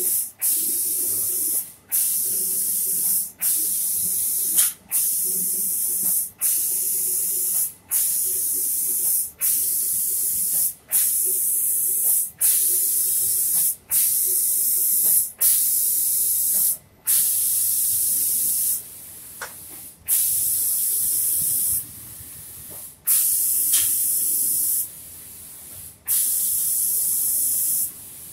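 Automatic spray-painting machine's spray gun hissing as it sprays a finish coat, in regular bursts about a second and a half long, each cut off by a brief gap. In the second half the bursts last about two seconds, with quieter pauses of about a second between them.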